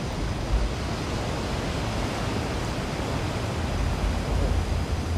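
Steady wash of sea surf with wind rumbling on the microphone.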